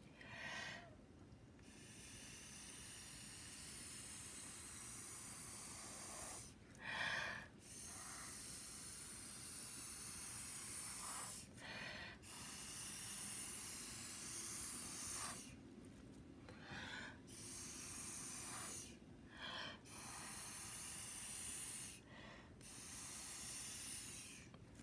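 Blowing through a drinking straw onto wet acrylic paint to push it across the canvas: a series of long airy blows of a few seconds each, broken by quick breaths in between.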